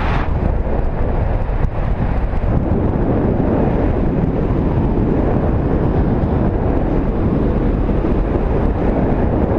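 Loud, steady wind rushing over the microphone.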